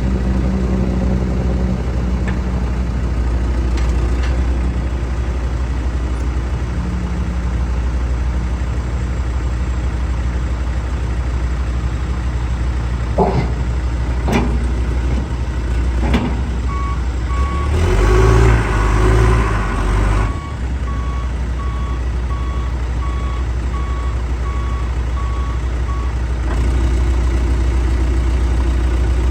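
John Deere 410J backhoe's diesel engine running steadily, with a few sharp clunks near the middle. Then the engine works harder and louder for about three seconds while a reversing alarm beeps at an even pace for about ten seconds.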